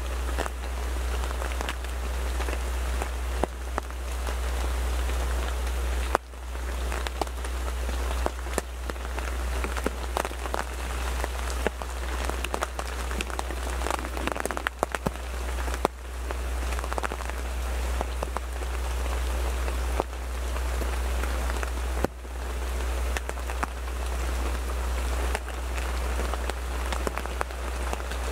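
Rain falling on a photo blind: a steady hiss of drops with many sharp individual drop hits, over a steady low rumble.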